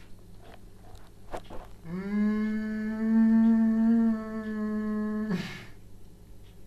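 A man relearning to speak voicing one long held sound, rising into a steady pitch for about three and a half seconds and ending in a breathy release, in his effort to recite a poem aloud.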